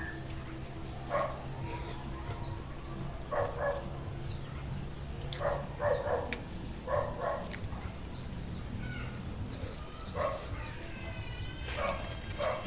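A dog barking in short separate barks every second or two, with birds chirping in quick, high, falling notes.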